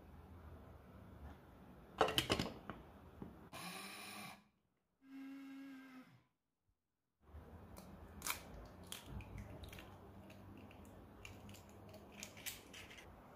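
Short, edited snippets of a small electric grinder whirring as it grinds oats into flour, cut off abruptly, between handling knocks and light clicks. The loudest sound is a clatter about two seconds in.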